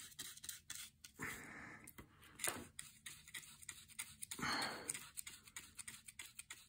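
Two faint breaths, about a second in and again about four and a half seconds in, over small ticks and light scratches of a paintbrush working on cardboard.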